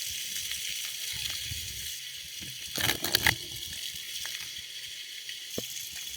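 Seawater sloshing and splashing close to the microphone during snorkelling, with a louder cluster of splashes about three seconds in.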